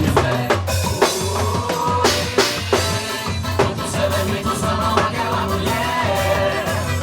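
A live band playing at a soundcheck: drum kit strikes over a steady bass, with a voice singing a melody.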